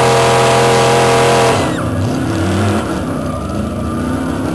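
Pickup truck engine held at high revs under load, pulling against another truck, loud and steady, then backing off abruptly about a second and a half in to a lower, uneven rumble.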